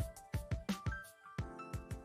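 Quiet background music with a steady beat.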